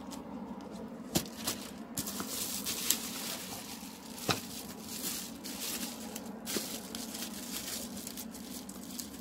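Plastic bubble wrap crinkling and rustling as hands lift a wrapped part from a cardboard box and pull the wrap open, with a couple of sharp knocks.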